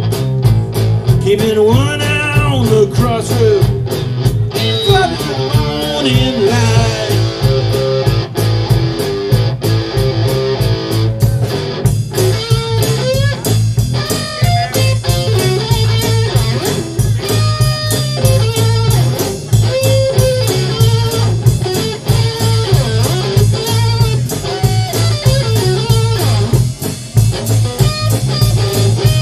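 Live amplified blues band playing: an electric guitar takes a lead with bent notes over a bass guitar line and a drum kit keeping a steady beat.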